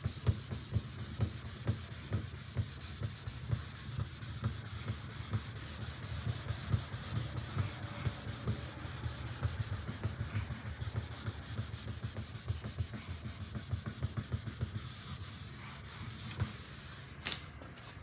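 Hand wet-sanding of single-stage car paint with 1500-grit paper on a sanding block: quick, rhythmic back-and-forth rubbing strokes that flatten out paint runs. The strokes stop near the end, and a single sharp click follows.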